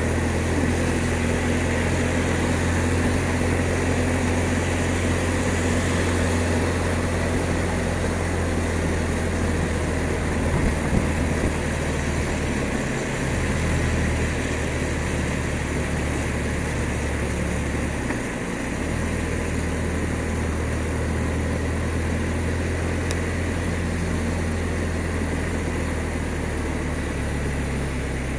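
BMW R1200 RT motorcycle's boxer-twin engine running steadily while riding on a wet road, with the low drone dipping briefly twice about halfway through, under steady wind and wet-tyre noise.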